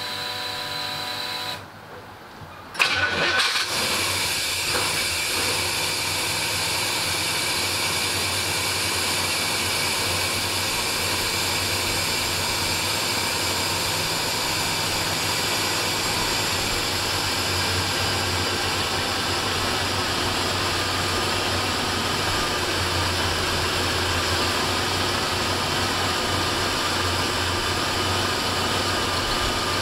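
International Scout II's 345 cubic-inch V8 with FiTech throttle-body fuel injection being cold-started. A steady whine from the fuel system priming at key-on stops after about a second and a half, then about three seconds in the engine cranks briefly and catches on the first try. It stumbles a little and then settles into a steady idle.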